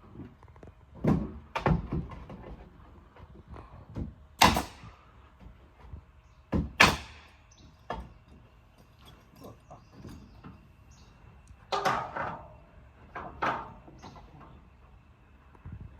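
A series of irregular bangs and knocks, about half a dozen loud ones with smaller knocks between, the loudest two with a brief ringing after them. A faint steady tone runs underneath.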